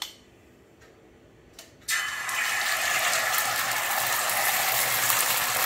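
Beaten egg poured onto hot oil on an iron dosa griddle, starting to sizzle suddenly about two seconds in and sizzling steadily after that.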